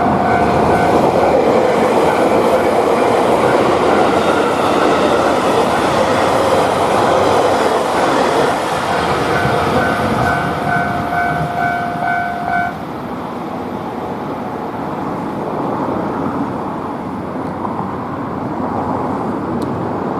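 A train running past a Japanese level crossing, its wheels clattering on the rails, while the crossing's electronic warning bell rings its rapid repeated 'kan-kan' chime. About two-thirds of the way through, the bell stops and the train noise drops lower.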